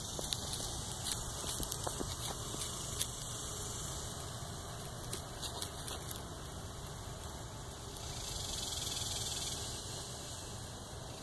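Steady outdoor background hiss with scattered faint clicks and crackles, the hiss swelling briefly about eight seconds in.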